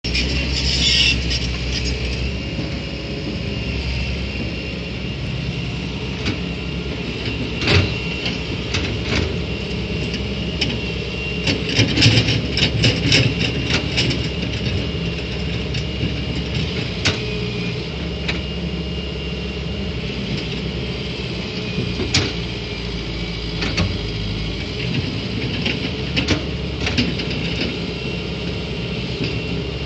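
Hitachi EX120 hydraulic excavator running steadily under a thin high whine, with sharp knocks at irregular intervals, clustered about twelve to fourteen seconds in.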